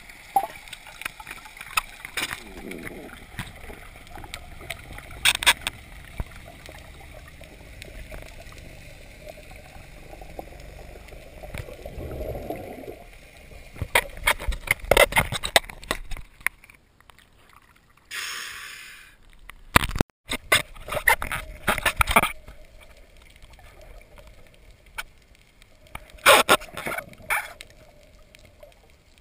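Water splashing and gurgling with scattered sharp knocks, coming in louder clusters about halfway through and again near the end.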